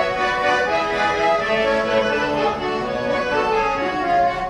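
Accordion playing an instrumental passage between sung verses of a Russian folk song, several notes held together.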